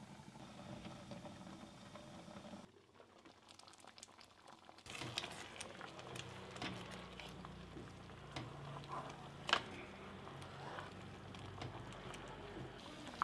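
Thick bamboo-shoot gravy bubbling at a simmer in a pan while a wooden spatula stirs it, with small wet clicks and scrapes and one sharp tap of the spatula on the pan about nine and a half seconds in. The stirring and bubbling start about five seconds in, after a quiet stretch.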